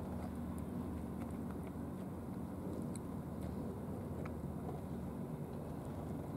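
Two cats eating from dishes, with small scattered clicks of chewing and biting over a steady low rumble.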